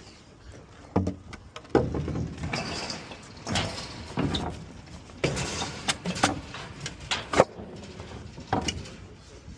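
Heavy junk being moved, probably boards and a wheeled commercial freezer: irregular knocks, bangs and scraping, with one sharp bang about seven seconds in.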